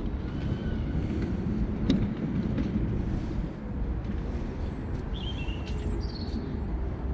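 Mini Crosser mobility scooter riding along, its electric drive giving a steady low hum and faint whine under tyre and wind noise, with a sharp click about two seconds in. A few short bird chirps come in around five seconds in.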